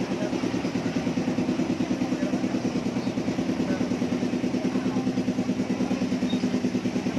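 The engine of a small park tourist train running steadily, with a rapid, even pulse.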